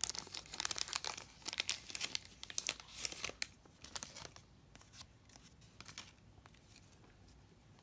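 Plastic bag crinkling and rustling as a stack of baseball cards is pulled out of it by hand, a dense run of crackles that thins to a few faint ticks after about three and a half seconds.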